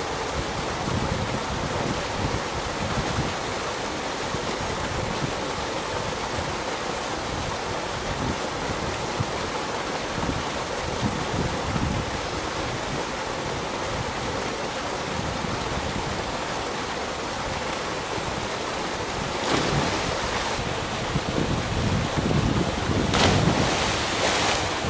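A steady rush of wind buffeting the microphone over a small weir waterfall pouring into a river pool. Near the end a person drops from a rope swing into the water with a big splash, with a shorter burst of noise a few seconds before it.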